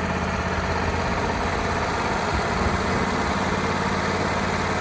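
Wood-Mizer LT35HD sawmill engine running steadily with an even low hum.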